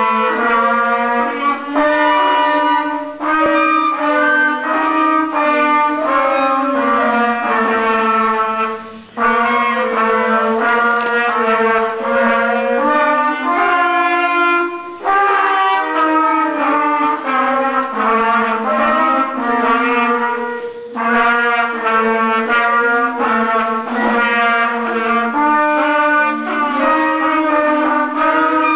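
Flute ensemble playing a tune in several parts, the players pausing briefly between phrases about every six seconds.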